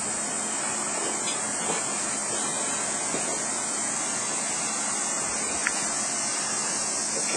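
Steady hissing background noise, with one light click about three-quarters of the way through.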